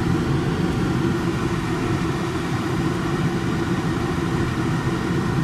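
Steady low hum of a 1993 Lincoln Town Car's 4.6-litre V8 running, heard from inside the car's cabin.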